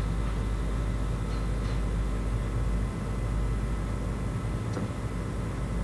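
Steady low hum with an even hiss over it, background room or equipment noise.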